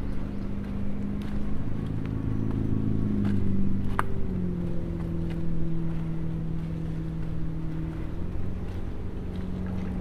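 Motorboat engine running steadily on the lake, its pitch stepping down about four seconds in and then holding level. A few light ticks sound over it.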